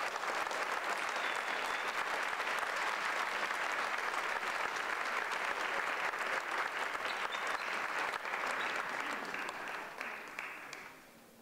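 Theatre audience applauding, the clapping dying away near the end.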